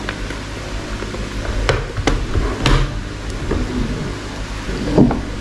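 A few sharp clicks and light knocks over a steady low hum, the strongest knock near the end.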